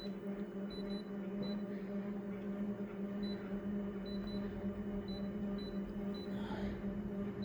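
Konica Minolta photocopier humming steadily, a fan-like hum from the back of the machine that the owner takes for a new mechanical noise, with short faint high chirps every so often.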